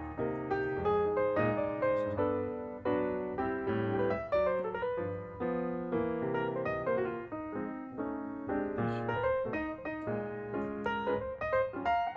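Background piano music: a melody of quick, evenly struck notes over held chords.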